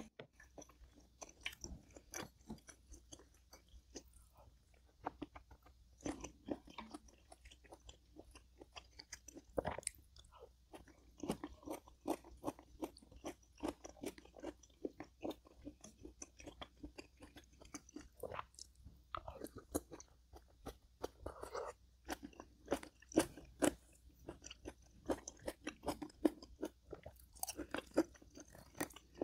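Close-miked mukbang chewing: a person eating and chewing food with many small, irregular crunchy bites.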